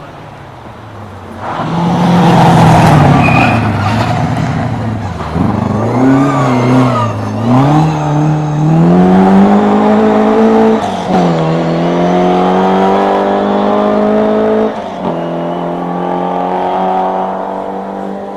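Rally car engine, loud from about a second and a half in. It revs unevenly at first, then accelerates hard with its pitch climbing, dropping sharply twice at upshifts, and fades near the end.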